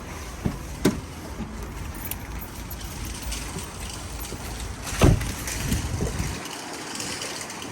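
Steady low outdoor rumble with a few sharp clicks and knocks, and one loud thump about five seconds in; the rumble drops away near the end.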